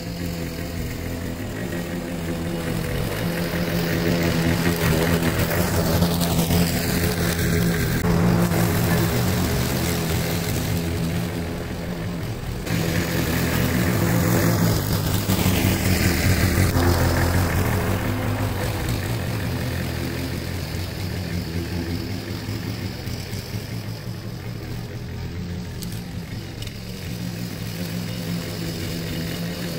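Briggs & Stratton single-cylinder four-stroke engine on a walk-behind rotary lawn mower running steadily while cutting grass. It grows louder twice as the mower passes close by, then eases off as it moves away.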